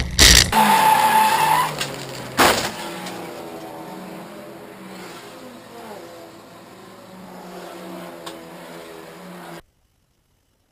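Race car sliding off the track into the dirt, with tyres skidding, a loud thump right at the start and another about two and a half seconds in. The engine then runs quietly at low revs, its pitch wandering up and down, until the sound cuts off suddenly near the end.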